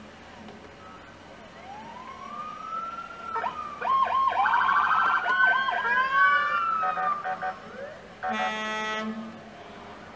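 Emergency vehicle sirens: several overlap, wailing up and down and yelping in quick warbles, loudest in the middle. Near the end comes a horn blast of about a second.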